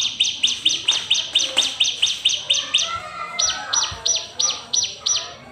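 Bar-winged prinia (ciblek) calling in a rapid series of sharp, high chirps, about five a second. There is a short pause about three seconds in, then the chirps resume.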